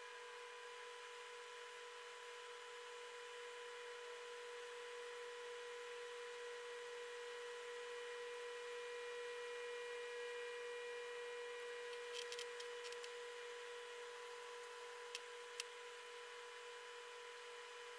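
AMD Wraith Stealth stock cooler fan on a Ryzen 5 3600 running fast under a full Cinebench load, a steady whirring hum with a held tone, swelling slightly in the middle. A few faint clicks come near the end.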